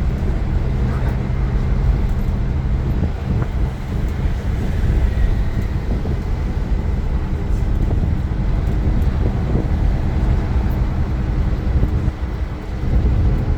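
Iveco Crossway LE 12 bus's Cursor 9 diesel engine running under way, a steady low drone with road rumble.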